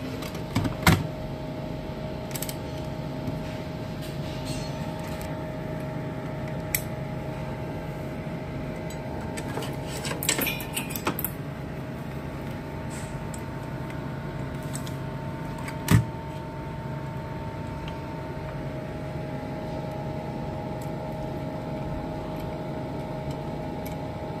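Cooling fans in an opened MX LP801 power amplifier running with a steady hum and a steady whine, while multimeter test leads are handled, giving scattered clicks and knocks, the sharpest about 16 seconds in.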